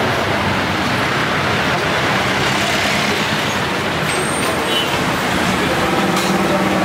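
Steady street traffic noise with vehicle engines running, a low engine hum showing through.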